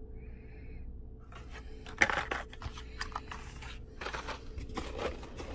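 Hot Wheels blister-pack cards being handled in and pulled from an open cardboard case: light rustling of card and plastic with a few sharp clicks and taps, the sharpest about two seconds in.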